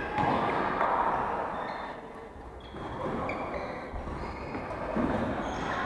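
Badminton play in a large hall: court shoes squeaking briefly and repeatedly on the wooden court floor, over a steady hall background.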